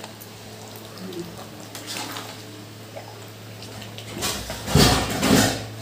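A metal spoon stirring thick curry in a large aluminium kadai, with a loud scraping, squelching burst lasting about a second and a half near the end, over a low steady hum.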